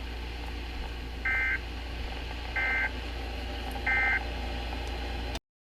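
Emergency Alert System end-of-message code: three short, buzzy two-tone digital data bursts about a second and a third apart, marking the end of the warning broadcast. A steady low hum runs under them, and the audio cuts off abruptly near the end.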